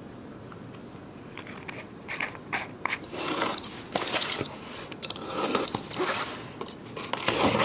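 Scissors blade slitting the packing tape on a cardboard parcel, with crackling tape and cardboard scraping, starting about a second and a half in.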